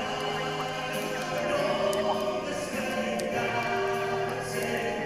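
Christmas music with choir-like singing in long held chords that change every second or two.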